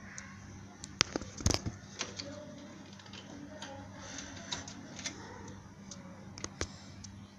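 Plastic clicks and knocks of computer power cables being handled inside a desktop PC case while the CPU cooler's fan lead is pushed onto the motherboard's CPU_FAN header. There are a few sharp clicks about a second in, the loudest knock at about a second and a half, and scattered ticks after that, all over a steady low hum.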